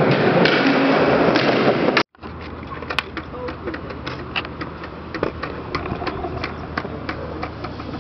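Skateboard wheels rolling loud on a smooth concrete floor with a few clicks, cut off suddenly about two seconds in. Then a quieter stretch with scattered sharp clacks and knocks on concrete and metal rails, the loudest about a second after the cut.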